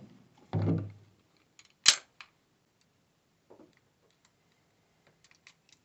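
Muffled gunshots from nearby lanes of an indoor pistol range: a dull boom with a short echo about half a second in, then a sharp, loud crack near two seconds in. Faint small clicks of handling follow.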